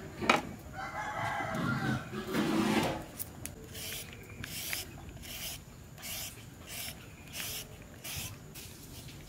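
Carrot being shredded with a hand-held julienne peeler: a short rasping scrape on each stroke, about one stroke every 0.7 s, starting some three seconds in. A rooster crows in the first couple of seconds.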